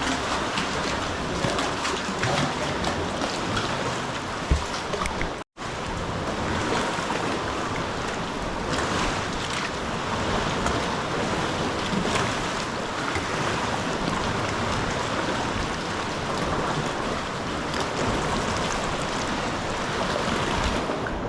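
Sea water washing around a sea kayak, with wind noise on the microphone. A single sharp knock comes about four and a half seconds in, and the sound cuts out for an instant about a second later.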